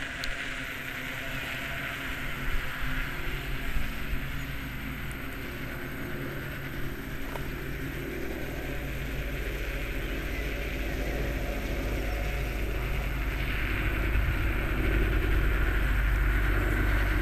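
Electric skateboard rolling on a concrete track, a steady rumble and hiss of its wheels, with a few light knocks early and growing louder toward the end.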